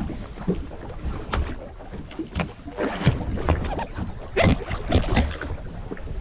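Water slapping and splashing against the hull of a drifting boat in irregular knocks, over a low rumble of wind on the microphone.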